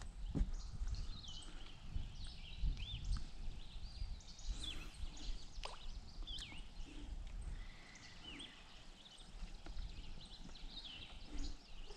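Small birds chirping: many short, high, arching notes repeated over and over, over a low rumble, with a few sharp knocks.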